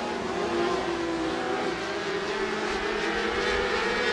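A field of micro midget sprint cars with 600cc motorcycle engines running hard together at racing speed, several high-revving engine notes overlapping and wavering in pitch as the cars race.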